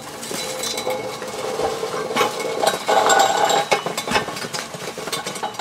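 Metal parts clinking and rattling as they are handled, a string of short clicks with a brief ringing squeak about three seconds in.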